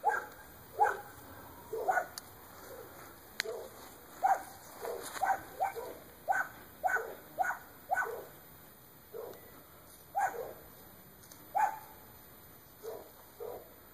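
A dog barking repeatedly: about twenty short barks at irregular intervals, some in quick runs, each dropping in pitch.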